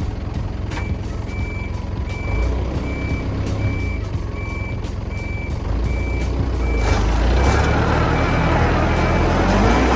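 Vehicle in reverse: its backup warning beeper sounds a short high beep about every three-quarters of a second over the running engine. About seven seconds in, a louder rushing noise joins the engine.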